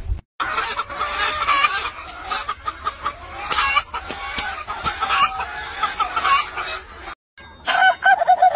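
Hens clucking, a quick run of short repeated calls. Near the end the sound cuts out briefly and a second chicken starts a run of evenly spaced clucks.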